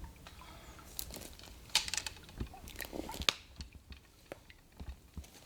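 Footsteps crunching and rustling through dry leaves and brush, a few irregular crunches in the first few seconds, then quieter toward the end.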